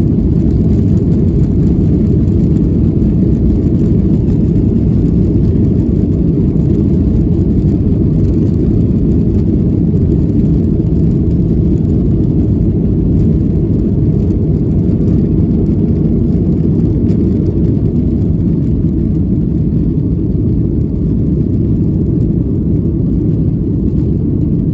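Airliner's jet engines and airflow during the climb after takeoff: a loud, steady low rumble that holds level throughout.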